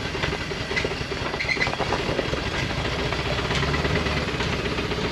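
A 1980 Dodge 200 pickup's 360 V8 running as the truck is driven slowly, with a rapid, even knocking through the engine sound; the engine is known to have a rod knock.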